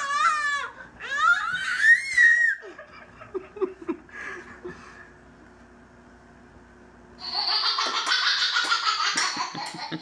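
A baby's high-pitched squeals at the start, then after a quieter stretch, hearty laughing through the last three seconds.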